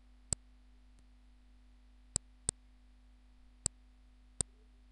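Computer mouse button clicking five times, single sharp clicks unevenly spaced, two of them close together a little past two seconds in, over a faint steady electrical hum.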